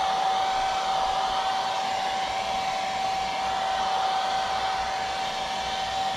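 Handheld Conair hair dryer running steadily: the rush of blown air with a constant whine from its motor and fan throughout.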